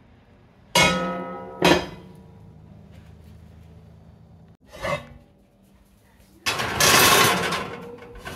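Metal cookware clanking twice, each knock ringing on briefly, a smaller knock a few seconds later, then a longer scraping noise near the end.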